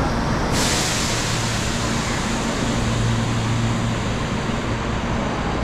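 Toei Mita Line subway train standing at the platform with its doors open: a steady low hum, joined about half a second in by a sudden hiss that then holds steady.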